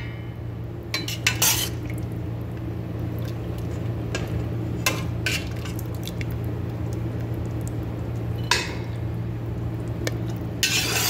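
Metal slotted spoon and ladle clinking and scraping against a stainless steel pot as pieces of boiled meat are lifted out of the broth. There are a handful of separate knocks, and a longer scrape near the end, over a steady low hum.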